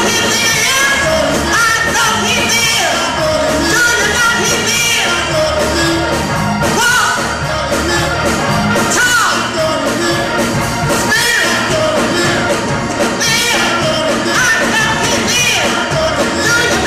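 A woman singing a gospel song into a handheld microphone, amplified through the church sound system over musical accompaniment.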